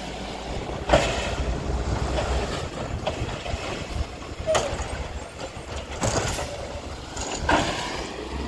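Automated side-loader garbage truck running while its mechanical arm grabs a blue recycling bin, lifts and tips it into the hopper, and sets it back down. A steady engine hum runs under several sharp clunks and bangs, the loudest about a second in and another near the end.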